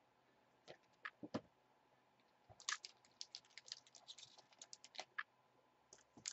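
Foil-wrapped trading card packs handled and stacked on a desk: a few light taps, then a run of soft crinkly clicks from a little under halfway in.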